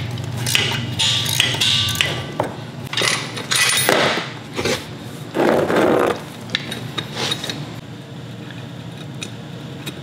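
Steel roller chain clinking and rattling as it is handled and fitted over a go-kart's rear axle sprocket, with irregular metal-on-metal knocks and clinks.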